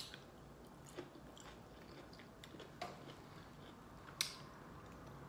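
Faint chewing of asparagus, with a few sharp mouth clicks and smacks spaced about a second or more apart, the loudest near the end.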